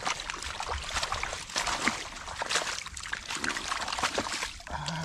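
Hands digging in shallow muddy water: irregular splashing and sloshing, with wet mud squelching and water dribbling off a lifted handful.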